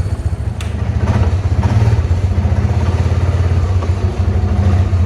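Four-wheeler (ATV) engine running steadily at low speed, a low putter with quick even firing pulses, as it tows a heavy load.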